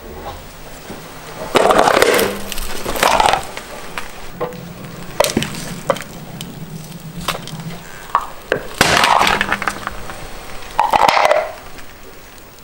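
Car tyre rolling over and crushing hard plastic objects, a plastic egg holder and plastic bowls, which crack and split under its weight. A run of loud cracks and crunches comes in about six separate bursts, a second or two apart.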